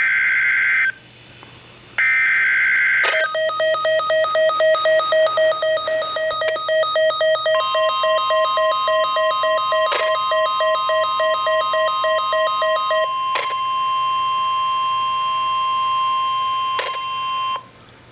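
Emergency Alert System signal: two short screechy digital bursts, the last of the data header, then a rapidly pulsed electronic alarm beep. About seven seconds in, a steady single alert tone, the weather radio warning tone near 1050 Hz, joins and carries on after the pulsing stops, with a few clicks, until it cuts off suddenly near the end.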